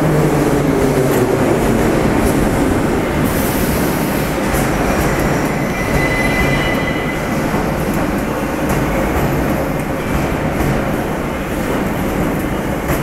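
81-717.6K metro train running past along a station platform: a steady loud rumble of wheels on rails with a low motor hum, occasional clicks, and a brief high wheel squeal about six seconds in.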